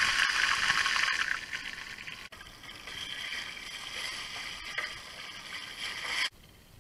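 Pompano pieces sizzling as they fry in oil in a pan. The sizzle is loud at first, softer after about two seconds, and cuts off abruptly near the end.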